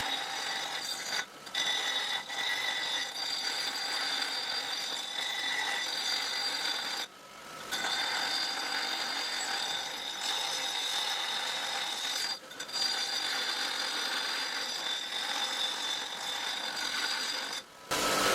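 Power grinder working steel plate, rounding off sharp corners: a continuous grinding hiss with a steady high whine, dropping out briefly four times as the tool comes off the metal.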